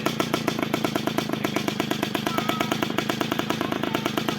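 Rog Pony Express moped's small two-stroke single-cylinder engine running at a steady idle: an even putter of about ten beats a second.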